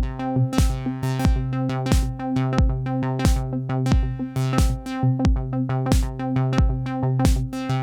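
Techno played live: a Roland TR-8 drum machine kick drum on a steady four-on-the-floor beat, about two kicks a second, with hi-hats, under a sustained, overtone-rich Behringer DeepMind 12 synthesizer tone.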